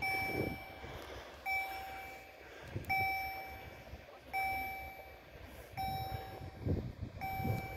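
Railway level-crossing warning signal ringing: an electronic bell-like ding repeated about every one and a half seconds, each ding fading quickly, sounding while the crossing is closed for an approaching train.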